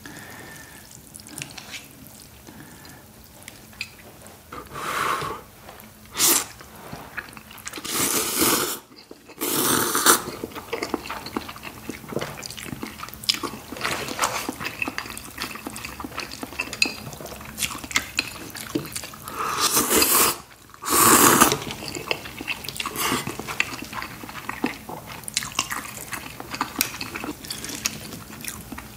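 A person slurping and chewing spicy instant ramen noodles, mouth sounds close to the microphone: a few long wet slurps, the clearest about eight seconds in and around twenty seconds, between steady chewing.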